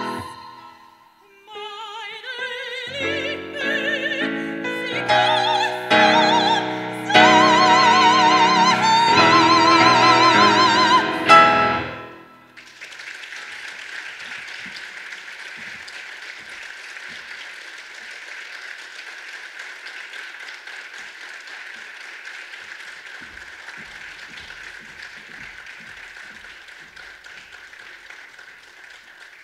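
Operatic soprano singing with a wide vibrato over a grand piano, ending on a loud held high note about twelve seconds in. Then audience applause, steady and fainter.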